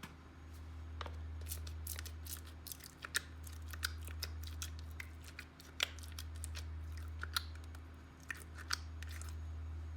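Slime being squeezed and mixed by hand, giving many irregular sharp clicks and crackles over a steady low hum.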